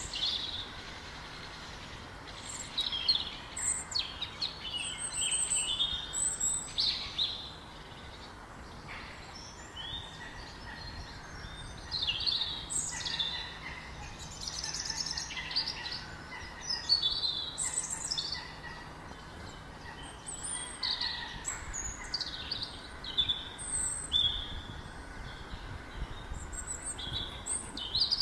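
Several birds chirping and singing: short high chirps and whistles of varied pitch, some sweeping up or down, overlapping one another over a steady faint hiss.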